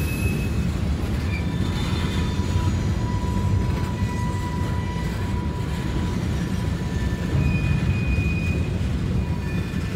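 Freight train of covered hopper cars rolling past: a steady, heavy rumble of steel wheels on the rails, with thin high squeals from the wheels that come and go.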